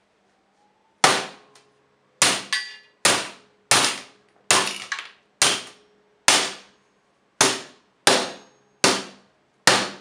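A hammer striking the keys of an Olivetti Lettera 25 typewriter: about a dozen sharp metallic blows, roughly one every three quarters of a second, each with a short clanging ring.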